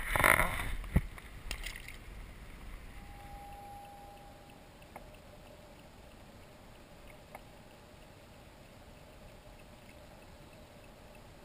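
Water splashing close by the side of a kayak, loud in the first second or so, then calm water with a few faint clicks.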